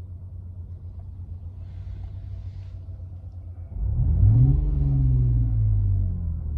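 Synthesized engine sound from Renault's R-Link sound-effect feature, played through the car's speakers: a steady low idle, then about four seconds in a rev that climbs quickly and slowly falls back toward idle.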